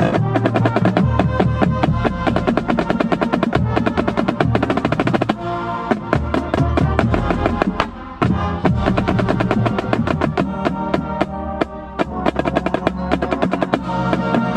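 Marching drumline playing a fast passage: rapid snare drum strokes and rolls close up, over tuned bass drums shifting pitch beneath, with a brief break about eight seconds in.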